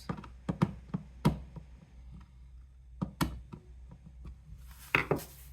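Irregular sharp clicks and knocks, about half a dozen, from small parts and tools being handled during a dishwasher repair.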